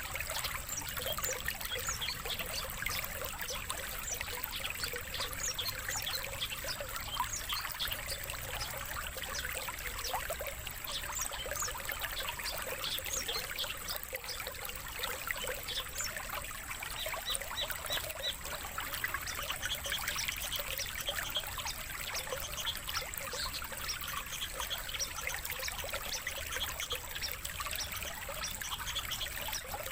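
Water trickling steadily, overlaid with many quick, high bird chirps and song notes throughout.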